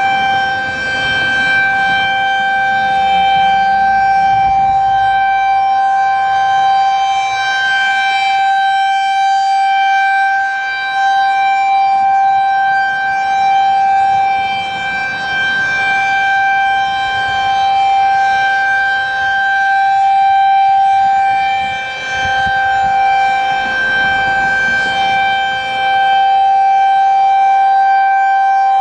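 Federal Signal 2001-SRN electromechanical warning siren sounding a steady-pitch alert tone. Its single horn rotates, so the loud tone swells and fades every several seconds as the horn sweeps toward and away.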